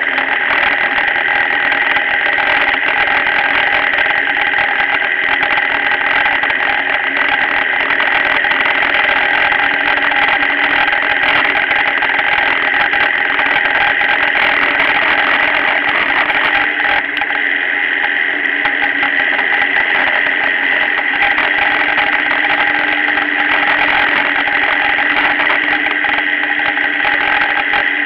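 Motorcycle engine running steadily at cruising speed, mixed with wind and road noise.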